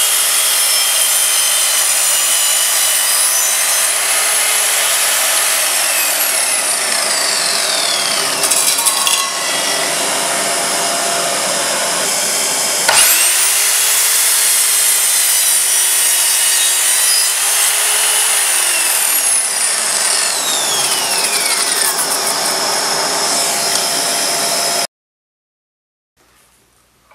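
Evolution R210SMS mitre saw's multi-material blade cutting through a pine block. The motor winds down about nine seconds in, starts again with a sharp rising whine about thirteen seconds in, cuts, and winds down again around twenty seconds, over a steady rushing noise. All sound cuts off abruptly near the end.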